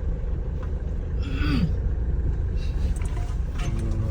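Steady low rumble of a Toyota Innova's engine and tyres heard from inside the cabin while driving, with a brief falling vocal sound about a second and a half in.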